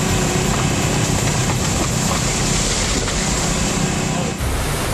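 Hurricane-force wind blowing hard and rumbling across the microphone. About four and a half seconds in it cuts abruptly to a different steady rush.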